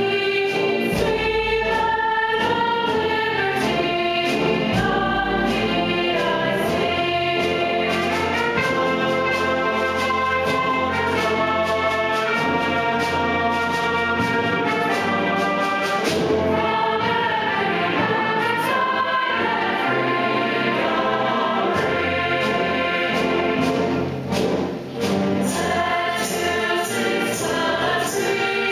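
Choral music with instrumental accompaniment: voices holding long, slow notes, with a brief dip in loudness near the end.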